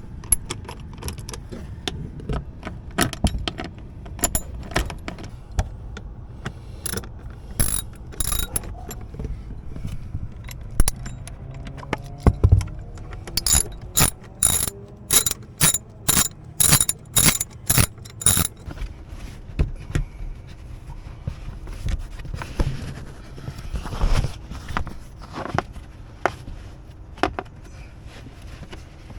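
A hand tool tightening the screws at the side of a car's center console: scattered clicks and knocks, with a regular run of sharp clicks, about two a second, in the middle.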